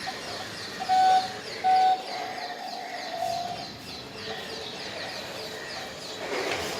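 Two short, loud beeps followed by a longer wavering tone at the same pitch, over a run of quick, high falling chirps repeating a few times a second.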